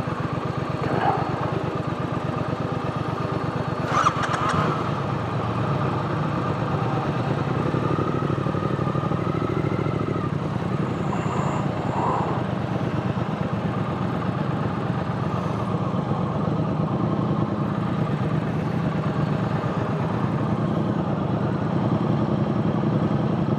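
Triumph parallel-twin motorcycle engine idling with an even beat, with a sharp click about four seconds in, after which the engine sound runs on steadily.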